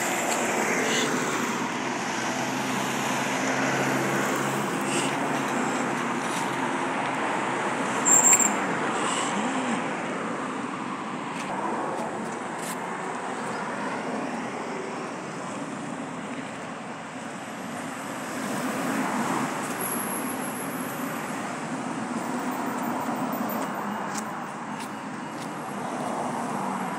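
Steady road traffic and vehicle engine noise, with a brief sharp high-pitched sound about eight seconds in.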